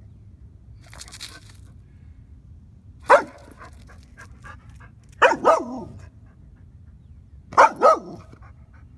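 A dog giving play barks at a cat, trying to get it to run and play: a single bark about three seconds in, then two quick pairs of barks a couple of seconds apart.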